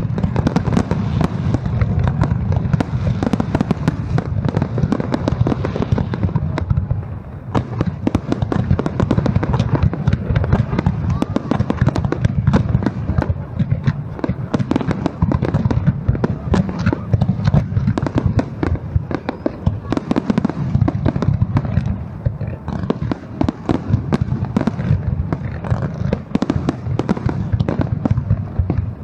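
A fireworks display going off continuously: a dense stream of rapid bangs and crackles over a deep rumble, with a short lull about seven seconds in.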